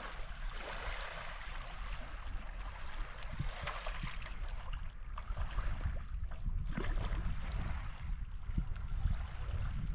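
Steady rush of flowing river water with a low rumble underneath, broken by a few faint clicks and knocks.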